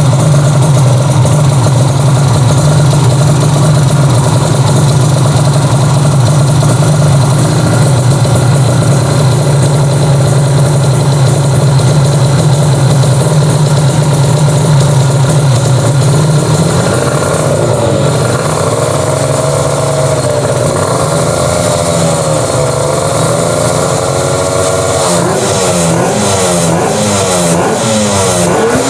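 Modified Kawasaki Ninja RR 150 two-stroke engine, built as a twin, running at a steady fast idle, then revved up and down over and over from a bit past halfway, with quicker, sharper blips toward high rpm near the end.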